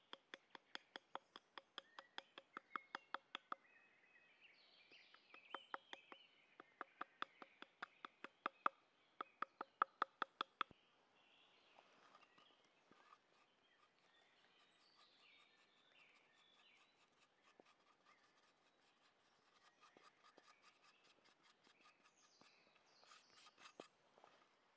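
Hand pepper mill being turned, giving fast ratcheting clicks, about four or five a second, in runs through the first ten seconds, then fainter grinding later on. Small birds chirp in the background.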